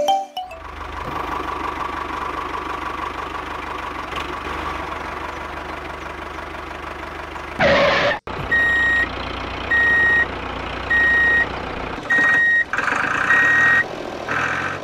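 Vehicle engine idling steadily with a low hum. About eight seconds in there is a short loud burst, then a reversing alarm beeps five times, about once every second and a bit, over the engine.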